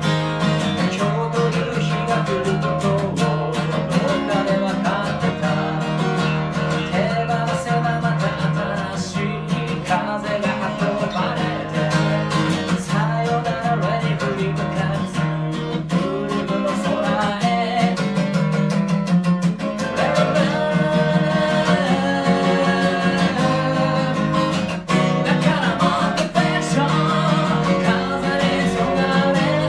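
A man singing while strumming a steel-string acoustic guitar in a steady rhythm.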